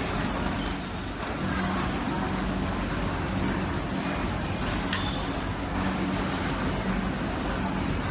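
Steady hum and rush of production-line machinery on a circuit-board assembly floor, with a low hum that swells and fades.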